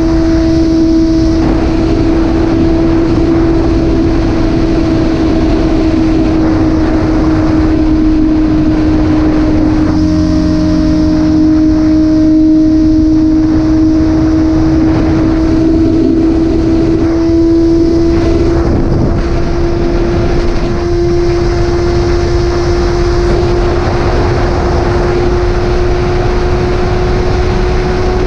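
Motorcycle engine running at a steady, almost unchanging pitch on the open road, its note rising slightly near the end, with wind rushing over the microphone.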